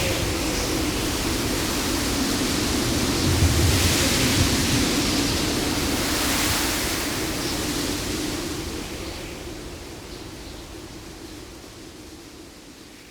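Ocean storm: a steady rush of surf and wind that swells twice, about four and six and a half seconds in. It then fades out steadily over the last five seconds.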